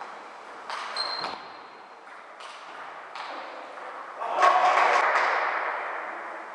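Celluloid-type table tennis ball clicking off the bats and table in a rally, a handful of sharp ticks echoing in a large hall. About four seconds in comes a louder burst of noise that fades over a couple of seconds.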